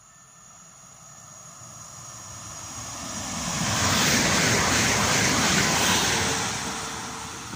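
Koleje Dolnośląskie electric multiple unit passing along the platform: a rush of wheel and air noise that swells over about four seconds, holds at its loudest as the train goes by, then starts to fade.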